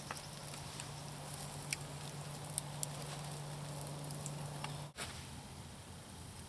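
A hot little campfire crackling, with scattered sharp pops over meat grilling on it. A steady low hum underneath stops abruptly about five seconds in.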